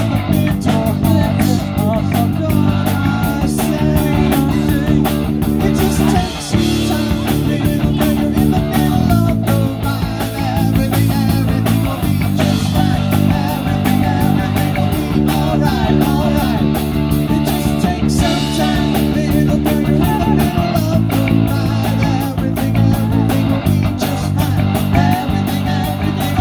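Live rock band playing: electric guitars, electric bass and a drum kit, amplified through a PA, with a steady beat.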